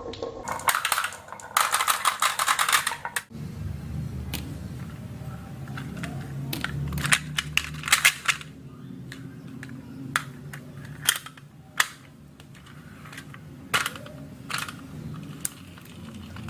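Marbles running down a marble run: a dense rattle for the first few seconds, then a steady low rolling rumble with scattered sharp clicks as the marbles hit the track and each other.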